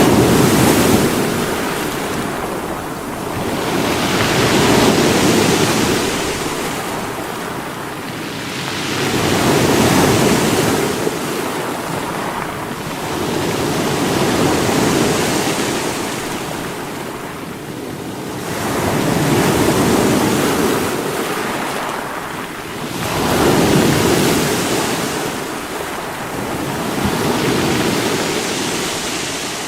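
Sea waves breaking against rocks: rushing surf that swells and ebbs in a steady rhythm, about one surge every four to five seconds.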